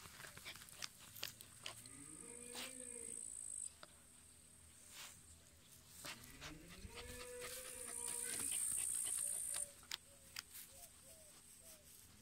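Dog digging into the ground with its nose in the hole: scratching, with hissy snuffling into the earth, and two drawn-out whines, about two seconds in and again about six seconds in.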